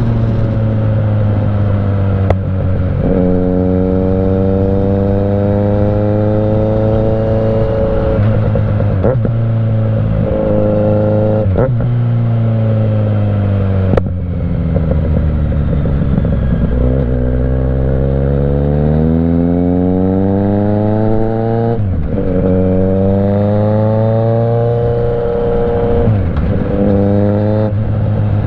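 Kawasaki Z900 inline-four with a Mivv GP Pro exhaust pulling hard through the gears: the engine note rises steeply, drops suddenly at each upshift and climbs again, with one long fall in pitch as it slows down before building speed again. Two sharp cracks come through, one about two seconds in and one near the middle.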